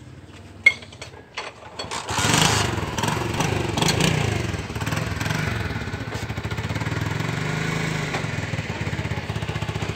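Small motorcycle engine starting after a few sharp knocks, revving briefly, then settling into a steady, even idle.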